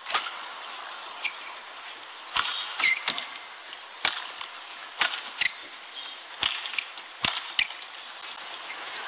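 Badminton rally: rackets striking the shuttlecock back and forth in sharp cracks about once a second, with court-shoe squeaks on the synthetic floor over a steady arena hum.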